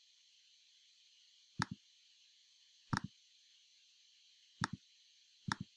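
Computer mouse button clicks: four separate clicks a second or two apart, each a quick double tick of press and release, as blending modes are picked from a menu. A faint steady hiss lies under them.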